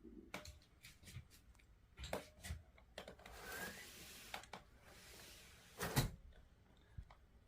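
Scattered knocks, clicks and scraping as window air conditioner installation parts are handled and fitted, with one louder knock about six seconds in.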